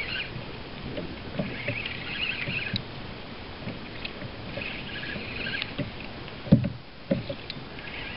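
Spinning reel being cranked to reel in a hooked fish from a kayak, with scattered knocks and rattles of gear against the hull and bursts of high chatter. A sharp knock about six and a half seconds in is the loudest sound.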